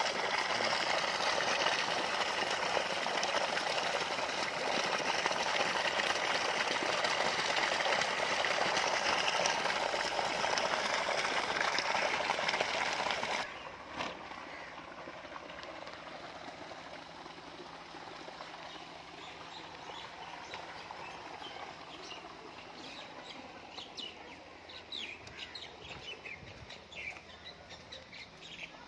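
Water gushing and splashing from a pipe outlet into a fish tank, a steady rush that cuts off abruptly about halfway through. After it comes a quieter background with birds chirping, more often near the end.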